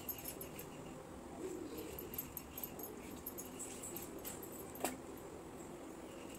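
Faint scraping and small ticks of a knife peeling a small vegetable by hand, with a short faint wavering sound about a second and a half in and one sharp click near the end.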